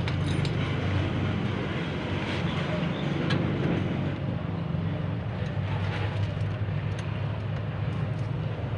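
Isuzu Crosswind engine idling steadily under the open hood, with a few faint clicks of hand work on the engine.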